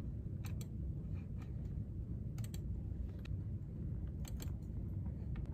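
A computer keyboard being typed on in sparse, irregular clicks over a steady low background hum.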